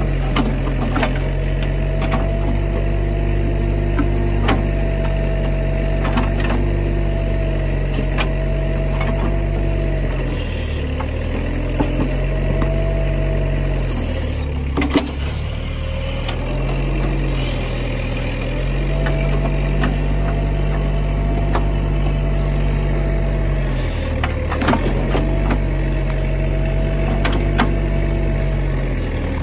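Bobcat mini excavator's diesel engine running steadily under digging load with a whine over it, its note dropping briefly a few times as the arm works. Scattered knocks and scrapes of the steel bucket against soil and roots.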